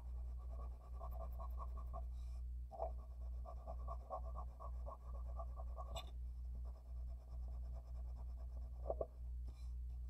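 Blue wax crayon scribbling back and forth on paper, quick rubbing strokes about five a second, with a short pause about two seconds in, over a steady low electrical hum.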